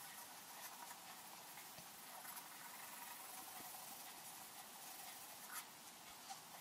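Pencil scratching faintly on paper as it hatches shading, with one sharper tick about five and a half seconds in.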